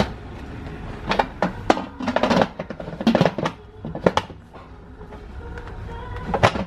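Lid of a Russell Taylors electric pressure cooker clanking and scraping as it is set on the pot and twisted shut: a string of irregular knocks, thinning out past the middle, with two more near the end.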